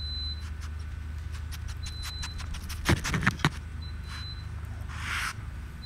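A raccoon handling and nosing the camcorder up close: a cluster of sharp clicks and knocks about three seconds in and a short sniffing hiss near the end, over a steady low hum.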